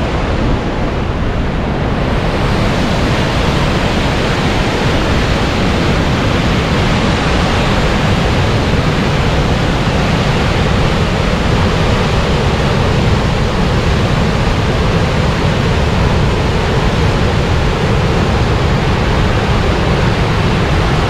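Loud, steady rush of the Yellowstone River's Upper Falls pouring over the brink, a little louder and fuller from about two seconds in.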